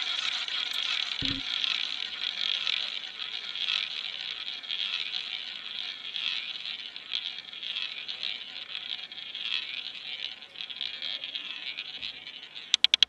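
Roulette ball rolling around the spinning wheel's track, a steady whirr that slowly fades; near the end comes a quick run of sharp clicks.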